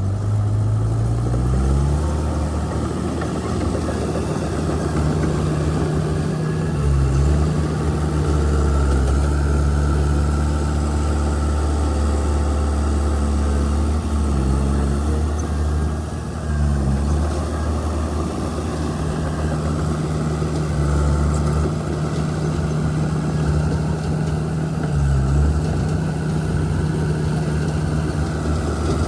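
Heavy earth-moving machine's diesel engine running steadily, its pitch dipping briefly and recovering several times as it takes load.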